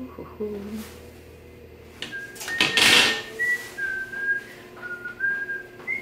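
A person whistling a tune, held notes stepping up and down, starting about two seconds in. A short burst of noise around three seconds in is the loudest sound.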